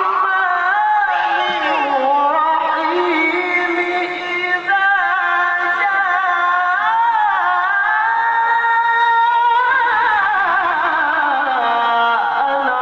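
A male qari recites the Quran in the melodic tilawah style, holding long ornamented notes that wind up and down in pitch. There is one short break about four and a half seconds in.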